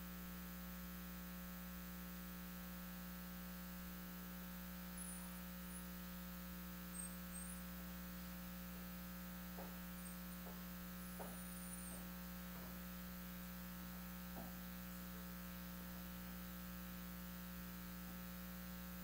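Steady low electrical mains hum, with a few faint knocks in the middle.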